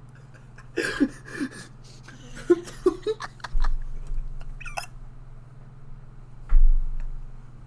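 Short bursts of laughter, with a steady low hum underneath. A low thump comes about six and a half seconds in.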